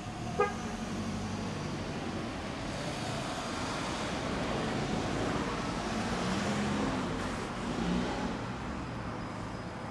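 Road traffic with a steady low engine hum underneath, and a vehicle going by that swells louder between about six and eight seconds in. A brief sharp chirp sounds about half a second in.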